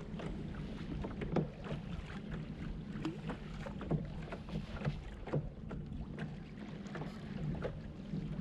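Small waves lapping against a kayak's hull, with irregular light knocks and splashes about once or twice a second over a steady low rumble of water and wind.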